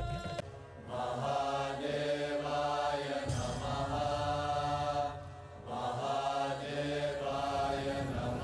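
Devotional mantra chanting in two long, drawn-out phrases over a steady low drone, with a short break about five seconds in. A drum beat cuts off just after the start.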